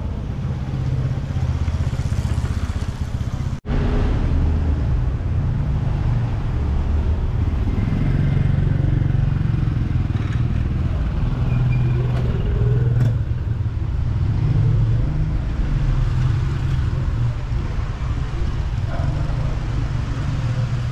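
City street noise: a steady low rumble of motor traffic, with motorcycles and cars passing, and a brief dropout about three and a half seconds in.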